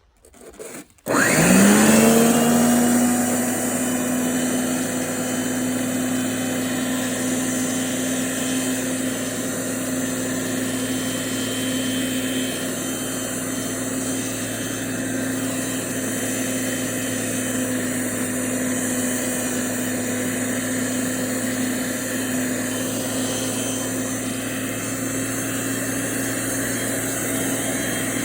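Newly repaired electric snow blower switched on about a second in: its motor spins up with a rising whine, then runs steadily at an even pitch.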